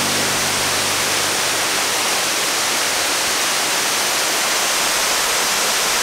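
Waterfall's steady rush of falling water, a loud, even hiss.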